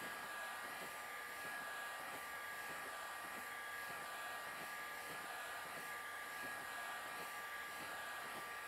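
Electric heat gun running steadily, blowing hot air, with a steady motor-fan whine of two constant tones over the rush of air.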